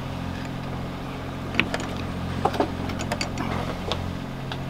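A few small clicks and taps of pliers on a metal raw-water pump housing as the rubber impeller is worked into place, over a steady low machine hum.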